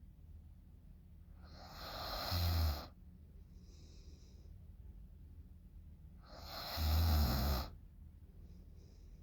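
A woman snoring in deep sleep: two snores about five seconds apart, each swelling over about a second and ending in a low vibrating sound, with a soft breath between them.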